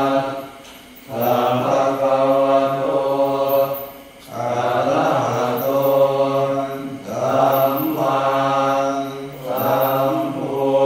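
Thai Buddhist chanting in low male voice, recited on a near-level tone in long held phrases broken by short pauses about every three seconds.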